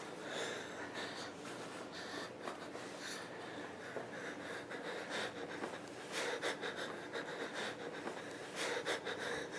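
A man's heavy, wheezing breaths, irregular and ragged, loudest around six seconds in and again near the end.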